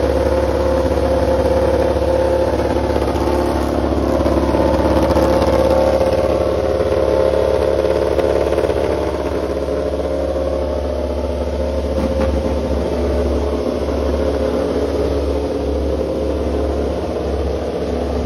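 Aprilia RS-GP MotoGP bike's V4 engine running steadily while the bike stands on its rear paddock stand, not being ridden.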